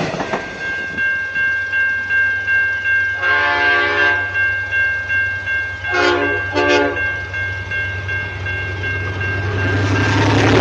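Train horn sounding one blast of about a second, then two short blasts in quick succession, over a steady high-pitched tone and a rhythmic clatter from the passing train. A low engine rumble grows louder near the end.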